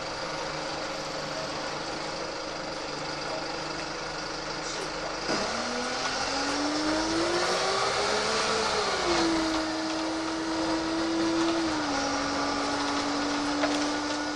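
VDL SB120 Wright Cadet single-deck bus's engine pulling away under load. About five seconds in the note gets louder and rises steadily for about three seconds, drops as the gearbox changes up, holds steady, then steps down again at another change near the end.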